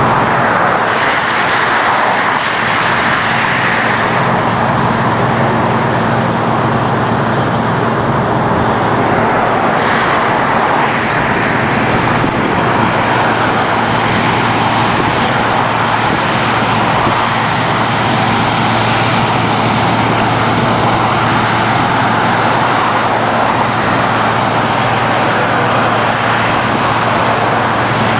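Heavy diesel road-work machinery running steadily: a constant engine drone under a loud, even rush of noise.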